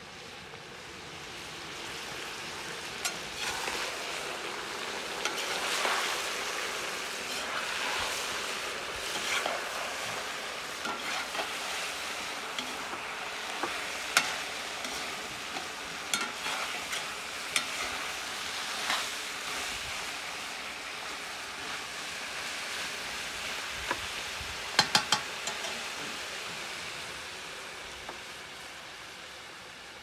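Plov sizzling in a 12-litre kazan over a wood-fired stove, with a skimmer stirring and scraping through the food. Sharp clicks come now and then, including a quick run of three late on. The sizzle swells after the start and fades near the end.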